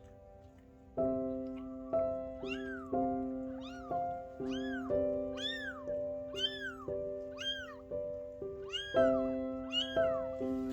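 Newborn Maine Coon kitten mewing, about a dozen short high cries that rise and fall in pitch, roughly one a second, starting a couple of seconds in. Soft piano music plays underneath.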